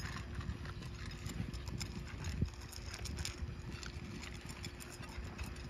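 Anatolian shepherd dogs eating from food bowls: a scatter of irregular crunches and clicks.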